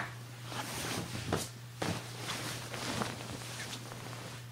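Irregular soft knocks and rustles, about eight in all, over a steady low hum.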